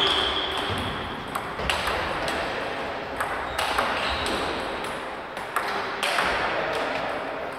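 Table tennis rally: the ball clicks sharply off the bats and the Tibhar table in an irregular run, roughly one hit every half second to second.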